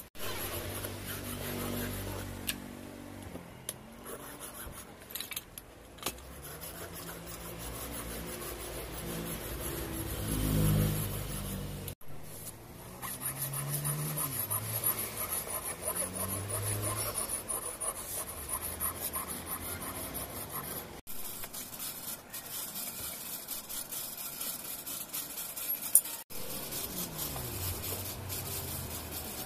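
A hand file rasping back and forth across the steel edge of an axe head, stroke after stroke, as the edge is filed down.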